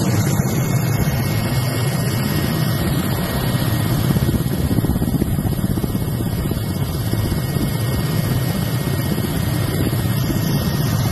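Mil Mi-17 helicopter in flight, heard from on board: the rotor and turbine engines make a loud, steady drone.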